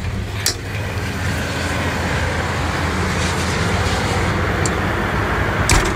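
Tower crane cab door unlatched with a sharp click about half a second in, followed by a steady rushing of outside air and noise that grows over the next two seconds as the door opens, with another knock near the end.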